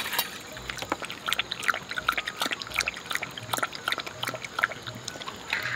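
A dog lapping water from a stainless steel bowl, a quick run of short wet laps at a few per second.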